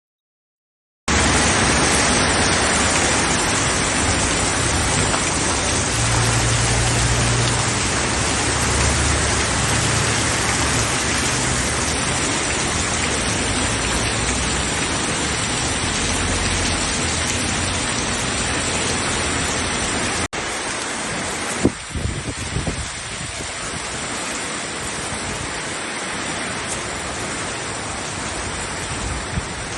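Heavy rain pouring down, a loud, dense, steady hiss. It starts suddenly about a second in, drops out for an instant about twenty seconds in, then goes on a little quieter, with one sharp knock shortly after.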